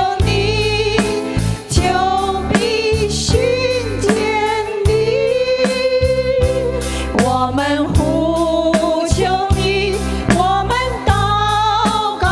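Live worship song in Mandarin: women singing the melody into microphones, backed by keyboard and a drum kit keeping a steady beat.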